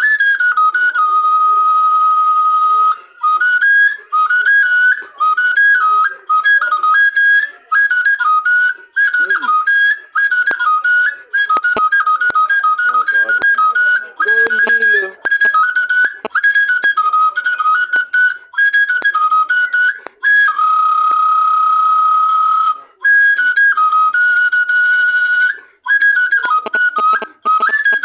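Igbo oja, a wooden flute, played solo: a high, piercing melody in short phrases of quick stepping notes, with a couple of long held notes about two-thirds of the way through.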